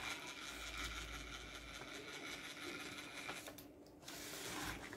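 Faint whirring of a small robot car's 100 rpm DC gear motors, starting abruptly and cutting off about three and a half seconds in. A brief faint hiss follows near the end.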